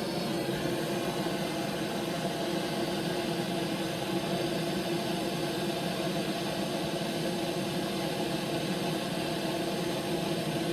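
A motor-driven machine running steadily: a constant hum with a clear pitch over a noisy whir, unchanging throughout.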